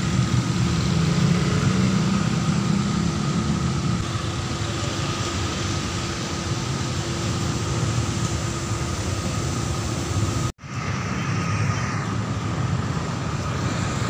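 Motor scooter riding in town traffic: its engine running steadily under wind and road noise, with other cars and motorcycles around it. The sound cuts out abruptly for a moment about ten and a half seconds in.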